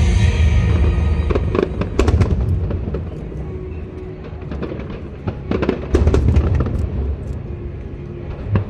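Fireworks display: deep booms of shells bursting mixed with sharp cracks. The bangs are densest about two seconds in and again about six seconds in, with music playing underneath.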